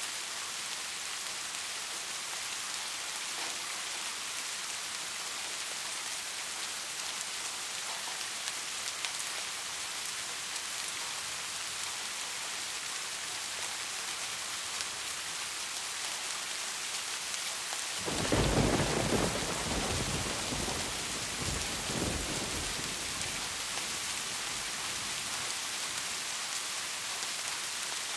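Steady rain falling with an even hiss. About two-thirds of the way through, a sudden deep rumble of thunder breaks in, loudest in its first second or so, swells once more, and fades within about five seconds.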